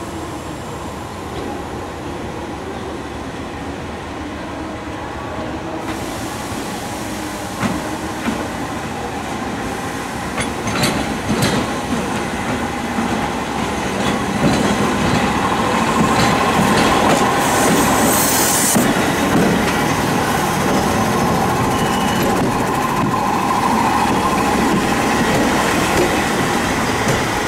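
Toyama Chiho Railway 14720-series electric train running slowly over the approach tracks and points into the terminal. Its wheels clack over rail joints, and the train grows louder; about halfway in a steady wheel squeal sets in and lasts to the end, with a brief hiss of air a little after the squeal starts.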